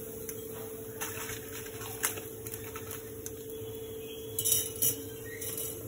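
Light clinks of metal kitchen utensils, a wire frying strainer against the kadhai, a few times. The loudest pair comes about four and a half seconds in, over a steady low hum.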